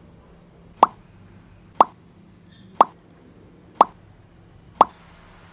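A cartoon-style 'plop' pop sound effect, repeated five times about once a second, each one short and sharp. Each pop marks a new canned good popping into the picture.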